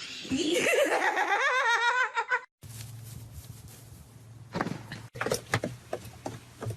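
A high vocal sound with a fast-wobbling, rising pitch lasts about two and a half seconds and stops abruptly. Then comes a low steady hum with a few light knocks.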